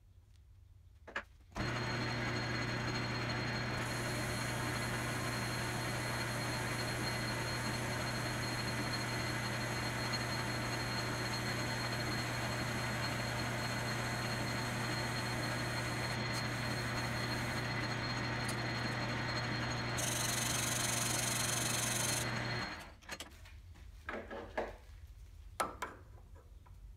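Logan 10-inch metal lathe running as it turns down a brass bar, a steady hum that starts about a second and a half in and stops suddenly a few seconds before the end, with a higher hiss for a couple of seconds near the end of the run. Afterwards come a few light clicks and taps as a micrometer is set on the work.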